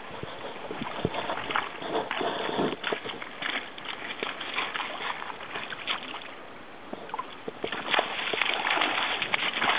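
Shallow river water splashing and sloshing in irregular bursts as a hooked salmon thrashes at the surface near the bank and an angler in waders steps into the shallows to land it.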